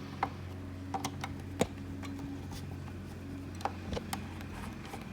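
Scattered small clicks and taps of a screwdriver and screws being handled inside a 2009 Mac mini during disassembly, the sharpest about a second and a half in, over a steady low hum.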